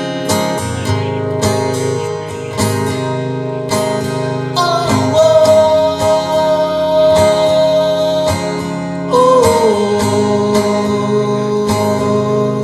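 Music: strummed acoustic guitar under a slow melody of long held notes, one starting about four and a half seconds in and another about nine seconds in.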